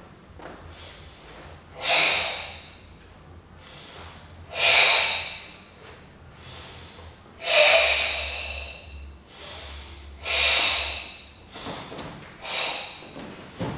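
Loud, forced breathing of the Goju-ryu Tensho kata (ibuki breathing): drawn-out, throaty breaths in and out in time with slow, tensed hand movements. There are about five of them, each lasting a second or two and a few seconds apart, with the longest about eight seconds in.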